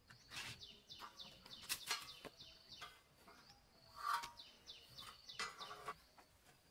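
A bird singing two runs of quick, downward-sliding chirps, faint, with scattered light knocks and clicks; the loudest knock comes about four seconds in.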